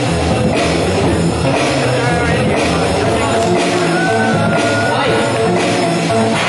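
Loud rock music with a steady beat and a voice singing over it.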